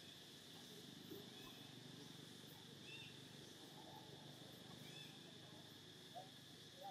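Near silence: faint outdoor ambience with a steady high insect drone and a faint short chirp about every two seconds.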